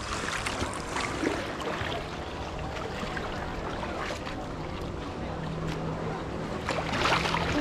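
Small waves lapping and washing over a pebble shore, with scattered small splashes and clicks. A faint low steady hum joins about five seconds in.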